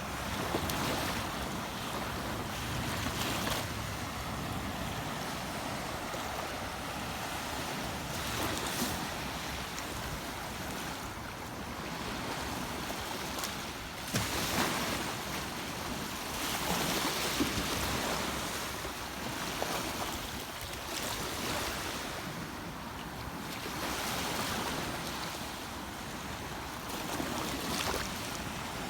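Water rushing steadily in a river, with a noise that swells and eases every few seconds.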